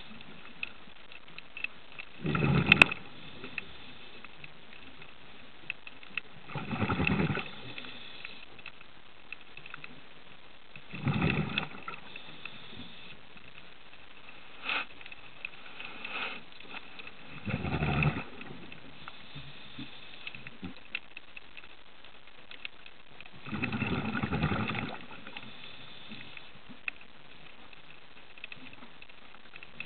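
A scuba diver's exhaled breath bubbling out of the regulator underwater, in bursts about a second long every five or six seconds, with a steady low hiss between breaths.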